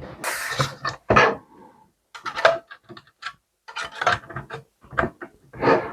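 A series of irregular clicks, scrapes and rattles from handling a small desktop PC and its cables during reassembly.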